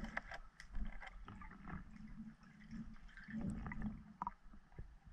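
Underwater sound picked up by a submerged camera: low, muffled water movement and gurgling with scattered short clicks and knocks as the diver moves.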